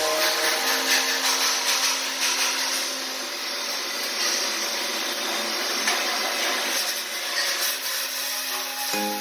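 Flux-cored arc welding: a steady, rough crackling hiss from the arc as the bead is run.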